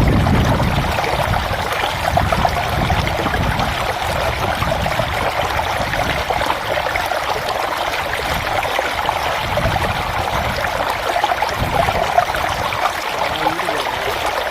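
Hill stream running over its bed: a steady rush of water, with a low rumble coming and going underneath.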